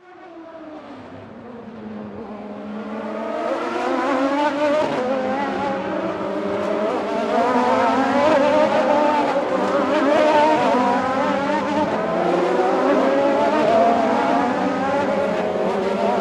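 Several racing motorcycle engines running at high revs at once, their pitches wavering up and down as they accelerate and back off. The sound fades in over the first few seconds, then stays loud and steady in level.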